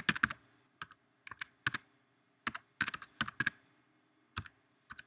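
Computer keyboard being typed on: a dozen or so short key clicks at an uneven pace, in small clusters, as a web address is entered.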